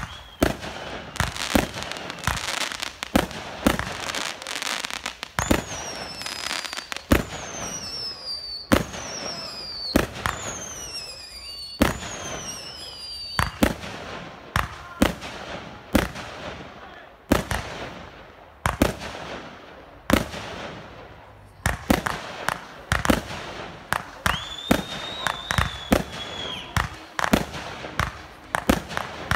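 Aerial fireworks display: a rapid string of shell bursts and bangs with crackle. There are several whistles falling in pitch between about five and thirteen seconds in, and a steadier whistle a few seconds before the end.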